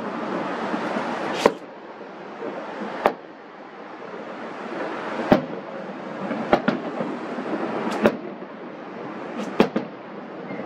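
Aerial fireworks shells bursting, about eight sharp bangs at uneven intervals, with a steady rush of noise between them.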